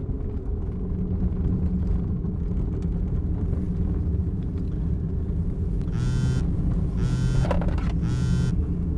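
Steady low rumble of a car running, heard inside the cabin. About six seconds in, a mobile phone starts ringing: three short electronic rings about a second apart.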